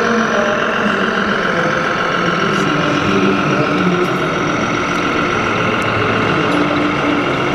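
Engine sound of a 1/14-scale RC MAN truck, pulling a loaded lowboy trailer slowly past, heard as a steady truck engine note at low speed over the constant hum of a crowded exhibition hall.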